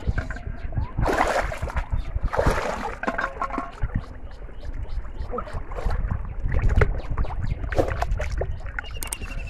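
Shallow water splashing and sloshing as someone wades and handles a hooked fish, with two louder splashes about a second and two and a half seconds in.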